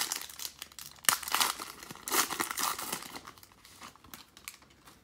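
Foil wrapper of a 2019 Panini Prizm football card pack being torn open and crinkled by hand, with the loudest crackling about a second in and again around two seconds in, tapering off.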